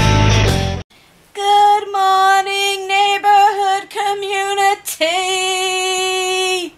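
Blues electric-guitar music cuts off within the first second. A woman then sings wordlessly: a run of short notes on nearly one pitch, then one long held note near the end.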